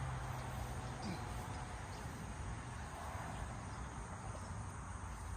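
Steady outdoor background of crickets chirping continuously, with a low steady hum that stops about a second in.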